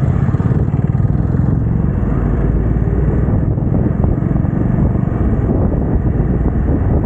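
Hero Xpulse 200T's single-cylinder engine running at a steady pace while the motorcycle is ridden, with no clear revving or gear changes.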